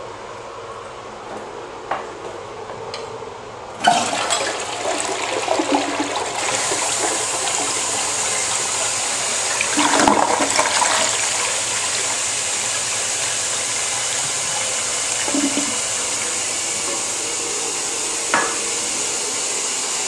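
Crane Atlas toilet flushing. Water rushes in suddenly about four seconds in, surges louder around ten seconds in, then settles into a steady hiss as the tank refills, with a click near the end.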